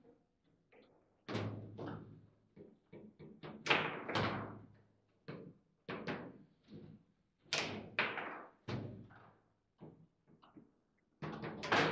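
Foosball table in play: the hard ball struck by the rod figures and banging off the table walls, with rods clacking, giving irregular sharp knocks and slams that each ring briefly. The hardest hits come about a second in, around four seconds and around eight seconds.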